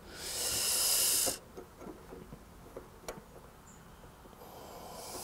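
A long exhaled sigh of frustration, followed by a few faint clicks of loose cassette cogs and spacers being handled, and a softer breath near the end.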